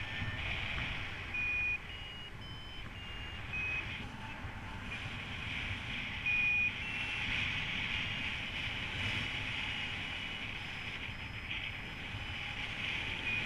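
Paragliding variometer beeping, short tones whose pitch steps up and down from beep to beep, signalling rising air. Wind rushes steadily over the microphone underneath.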